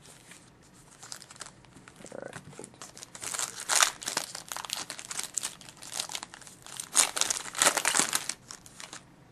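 Crinkling of plastic packaging as trading cards are handled, in irregular crackly spells that are loudest around the middle and again shortly before the end.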